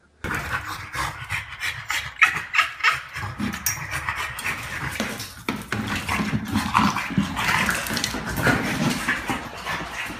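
A small black-and-white dog breathes hard and makes dog noises as it pushes a big rubber ball around a wooden floor. Many quick clicks and knocks from its paws and the ball run through the whole stretch.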